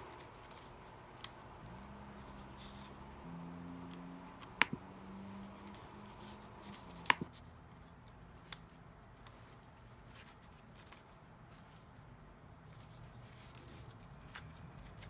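Quiet handling of paper and card pieces of a handmade journal: faint rustling with a few sharp clicks or taps, four of them spread over the first half.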